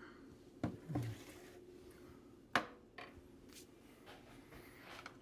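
A spoon clinking and knocking against a dish as broth is spooned over food: a few short light knocks, about four within the first three seconds.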